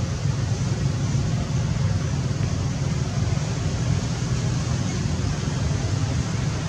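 A steady low rumble with an even hiss over it, unchanging throughout.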